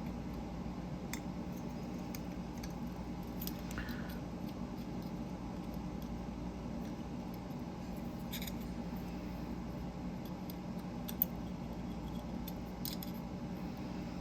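Small metal parts of a dial fidget toy being handled and fitted together by hand: scattered light clicks and taps, with one sharper click about eleven seconds in, over a steady low hum.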